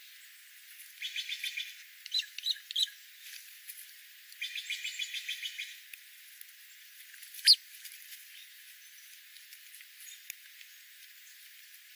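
Small wild birds calling: two rapid trills of repeated high notes, each about a second long, with a few separate chirps between them, then one loud, sharp, falling chirp about two-thirds of the way through.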